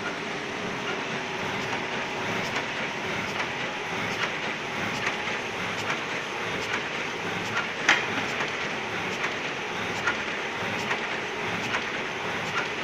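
Elba SA 9011-E bag-making machine running: a steady mechanical clatter with many short sharp clicks, and one louder knock about eight seconds in.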